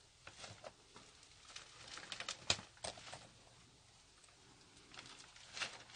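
Faint, scattered clicks and rustles, bunched mostly in the middle, with a few more near the end.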